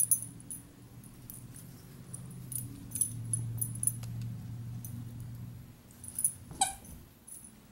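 A puppy playing with plush squeaky toys: light clinking and jangling clicks, a low steady hum through the middle, and one short squeak from a toy squeaker near the end.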